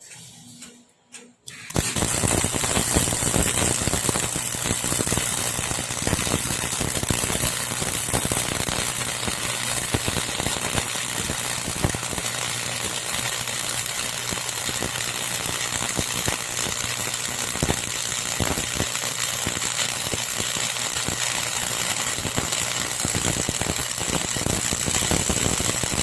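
MIG welder's arc crackling and sizzling steadily over a low hum, starting about two seconds in and stopping right at the end: a test weld at 200 amps with a newly replaced MIG torch, the sign that the repair works.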